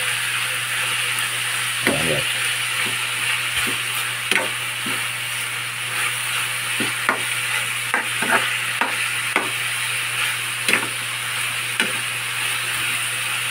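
Chunks of fish and chopped peppers sizzling in oil in a frying pan while a metal spoon stirs them, with irregular scrapes and clicks of the spoon against the pan. A steady low hum runs underneath.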